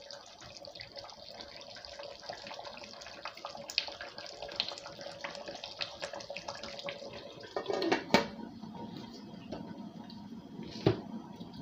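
Atama soup bubbling in a large aluminium pot on the stove, a steady crackling simmer. There is a loud metal clank about eight seconds in, as the aluminium lid goes onto the pot, and another knock near the end.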